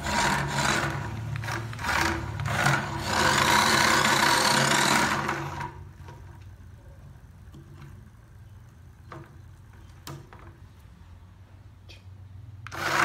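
Small DC motor spinning a brush of toothbrush heads that scrubs and rasps against a wooden tabletop, loud for about the first six seconds. It then drops to a faint motor hum with a few clicks, and the sound rises again near the end.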